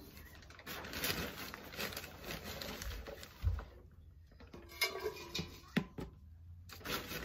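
Potting soil being scooped from its plastic bag with a plastic tub and poured into a plastic flowerpot: rustling and pattering, with a few light knocks.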